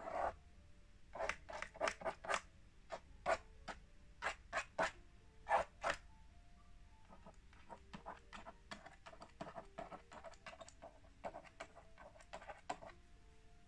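The plastic stylus of a magnetic drawing board scratching across the screen in short strokes. The first half has a dozen or so louder, separate strokes. The second half has quicker, fainter short strokes as the drawing is filled in with hatching.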